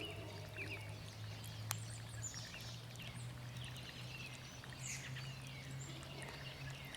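Several birds chirping and calling in quick, overlapping short notes over a steady low hum, with a single sharp click just under two seconds in.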